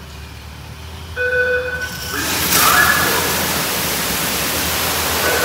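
D&S IQ Express automatic car wash starting its spray. A short steady tone sounds about a second in, then a loud, steady hiss of water spray begins about two seconds in, over a low hum.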